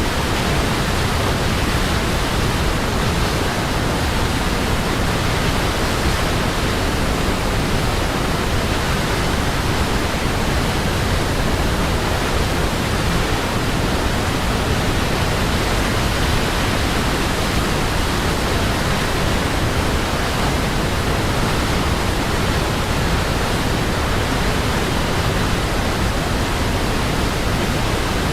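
Waterfall: a steady, unbroken rush of falling water that does not change.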